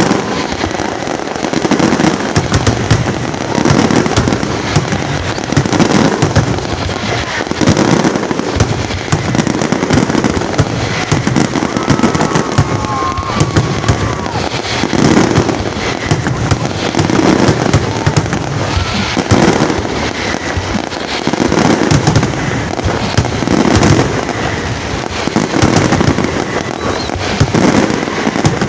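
Fireworks display: heavy shell bursts booming every second or two over continuous dense crackling, with a couple of short whistles about twelve seconds in.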